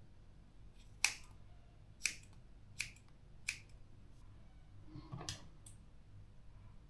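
Scissors snipping through a lock of hair: four sharp snips about a second apart, then a softer snip with some rustling about five seconds in.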